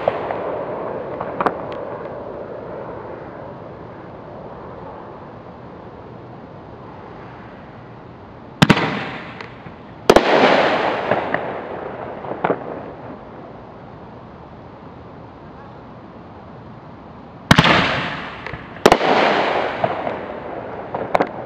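Aerial firework shells bursting: two pairs of sharp bangs, about a second and a half apart within each pair, each bang followed by a fading crackle, with a few smaller pops between.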